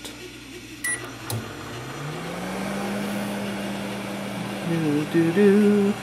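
Whirlpool over-the-range microwave oven starting up and running: a couple of clicks about a second in, then its hum rises in pitch over about a second and settles into a steady drone.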